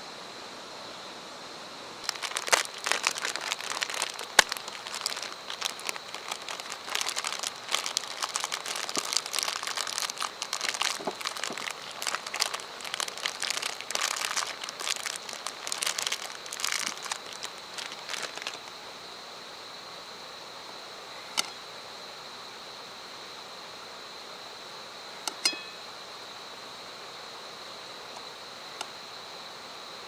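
Plastic sausage packaging being crinkled and torn open by hand, a dense crackling run of about sixteen seconds, then a few single clicks as the sausages are laid out.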